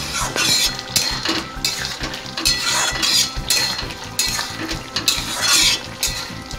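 Steel spatula scraping and stirring a thick potato and pointed gourd curry in a metal kadai, in repeated short strokes about one to two a second.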